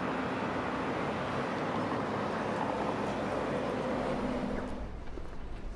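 City street traffic: a passing vehicle's engine and tyre noise, steady and then fading away about five seconds in.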